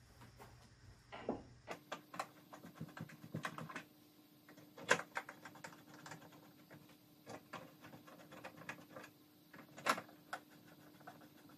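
Phillips screwdriver turning the swing-arm screws of a recessed fire extinguisher cabinet in drywall, sped up: a quick, irregular run of small clicks and taps, with louder knocks about five and ten seconds in, over a faint steady hum.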